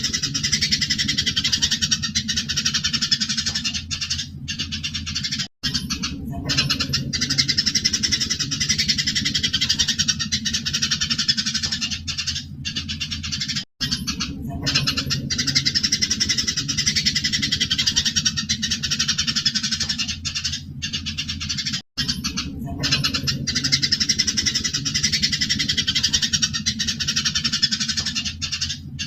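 Eurasian tree sparrows chattering and twittering without pause in their excited fighting calls, over a low steady hum. The sound cuts out for a split second about every eight seconds.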